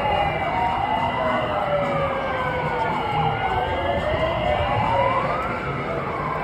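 Sirens wailing, overlapping one another, each slowly rising and falling in pitch over a few seconds, above a low hum of street and crowd noise.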